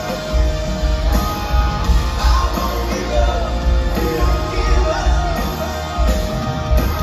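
A rock band playing live with lead singing, electric guitars and drums over a pulsing bass line, heard from among the concert audience.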